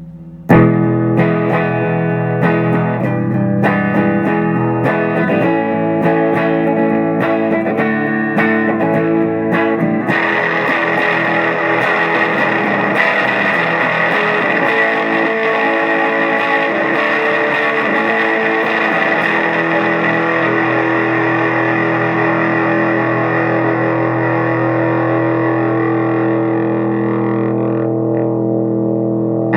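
Electric guitar played through a vintage Maestro FZ-1A Fuzz-Tone pedal, giving a buzzy distorted tone. For about the first ten seconds it plays separate picked notes and chords, then holds a long sustained fuzz passage that rings on until near the end.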